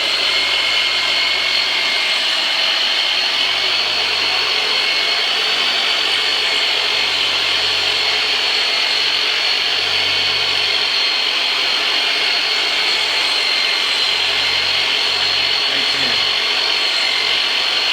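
Electric massage machine running steadily with a high motor whine, its low hum swelling and easing as it is pressed into the back. It winds down near the end.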